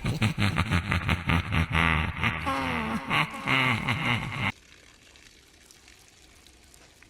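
Rapid sputtering farting, like an outboard motorboat, several pulses a second, cutting off abruptly about four and a half seconds in and leaving faint quiet.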